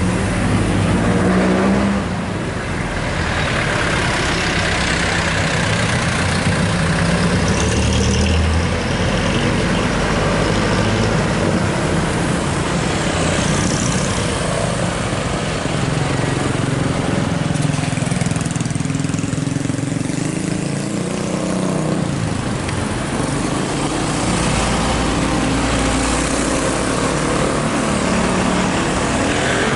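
Street traffic: cars and a motorbike passing close by, with engines humming steadily.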